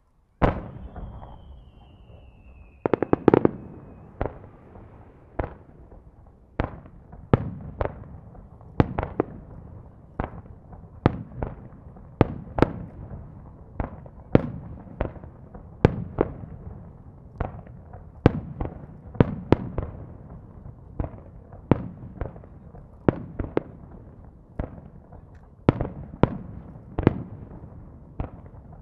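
Aerial firework shells bursting one after another, about one or two a second, each with a short echoing tail. In the first few seconds a whistle slides down in pitch over the bursts.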